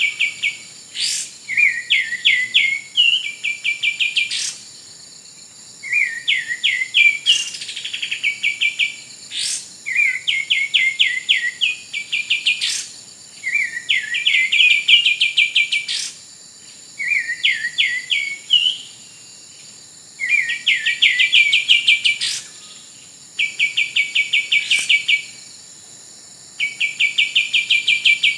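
Kapas tembak bird calls used as a trapping lure: bouts of rapid chattering notes, about ten a second, come again every two to three seconds with short pauses between. A steady high-pitched insect-like drone runs underneath.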